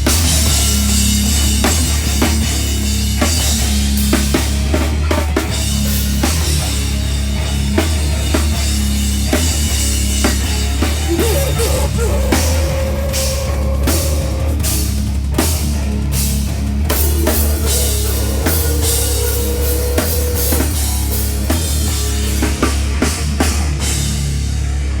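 Live heavy rock band playing loudly, with pounding drums, bass drum and crashing cymbals over a thick wall of bass and guitar.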